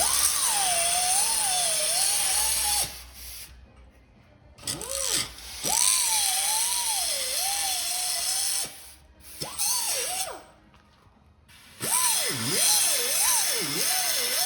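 A handheld power tool running in four bursts with short pauses between, its whine wavering and sagging as it is pressed into the work. Near the end the pitch dips deeply twice, as if it nearly stalls, before recovering.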